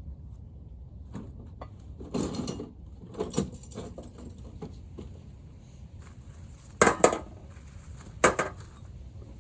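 Metal tools and engine parts clanking and clinking as an engine is taken apart: a few separate clatters, the loudest a pair close together about seven seconds in, then another just over a second later.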